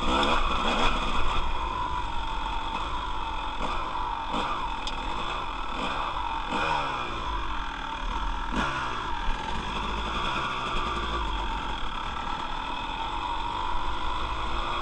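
Dirt bike engine running as the bike rides a rough gravel trail. The revs rise and fall several times in the first half, then hold steadier.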